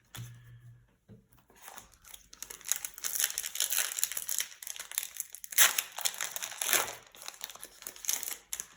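Plastic trading-card booster-pack wrapper crinkling and tearing as the pack is opened, a dense run of crackles that begins a couple of seconds in and is loudest a little past the middle.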